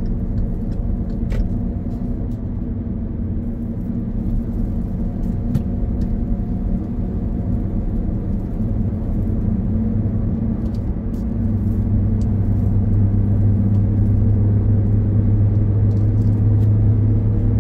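Car driving at speed on a highway, heard from inside the cabin: steady engine and tyre drone with road rumble. About two-thirds of the way through, a deep low hum grows louder and holds.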